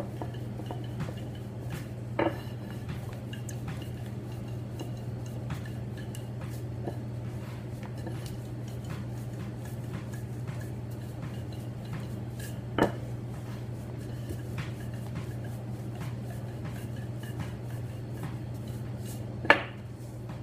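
Wooden rolling pin working dough on a floured counter, with faint scraping clicks over a steady low hum. Three sharp knocks stand out, about two seconds in, halfway through, and the loudest near the end.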